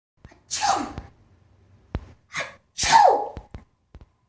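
A person sneezing twice, with a short sharp intake of breath just before the second sneeze.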